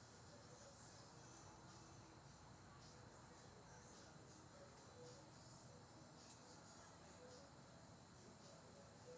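Night insects, crickets, trilling steadily in a high-pitched chorus that dips briefly about three seconds in.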